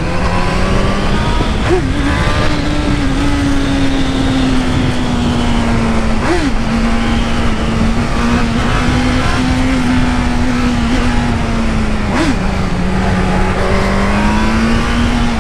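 Honda CB1000R inline-four engine running steadily at road speed, with wind rushing over the microphone. The engine note holds nearly level, with three short upward flicks in pitch and a slight fall near the end.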